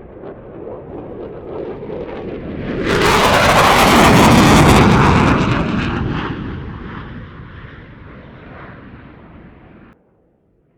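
Military jet aircraft flying past: the sound builds, peaks loud and crackling about three to five seconds in, then fades away, and is cut off abruptly near the end.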